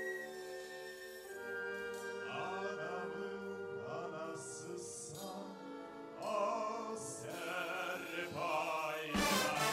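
A male singer singing a slow, held melody with wide vibrato through a microphone, over sustained chords from a military wind band of flutes, clarinets and saxophones. About nine seconds in, the full band comes in louder with brass.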